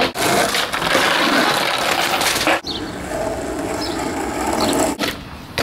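Skateboard wheels rolling over rough concrete, a steady grinding rattle that cuts off suddenly twice.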